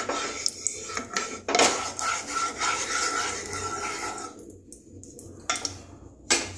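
Wooden spatula scraping and rubbing over the bottom of a nonstick kadai, spreading melted ghee around the pan. The scraping stops about four seconds in, followed by a couple of light knocks.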